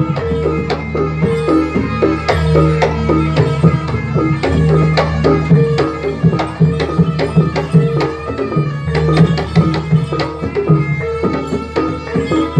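Live jaranan ensemble music: fast hand-drum strokes over repeated held pitched notes.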